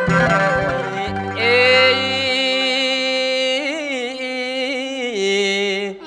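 Khmer traditional ensemble music: a few quick struck notes of a khim hammered dulcimer, then from about a second and a half in one long held melodic note that wavers near the middle and steps down lower near the end.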